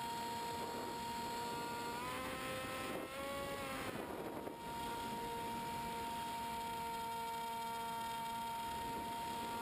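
The electric motor and propeller of a Multiplex EasyStar model plane whine steadily. About two seconds in the pitch rises for a second and a half, then the whine briefly cuts out, leaving only a rushing hiss, before the steady whine returns about a second later.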